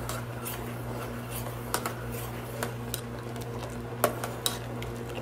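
A metal spoon stirring coconut cream in a stainless steel pan, scraping and clinking against the pan every so often, as the cream cooks down for latik. A steady low hum runs underneath.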